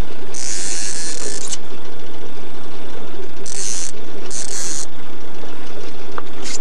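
A fishing reel's clicking drag buzzing in three bursts, the first about a second long and two shorter ones midway, as a hooked king salmon pulls line during the fight. A steady low drone runs underneath.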